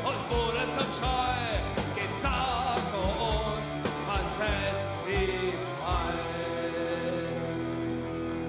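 A rock-style song: a lead vocal over a band with a drum beat. About six seconds in, the singing stops and a final chord is held, ringing on.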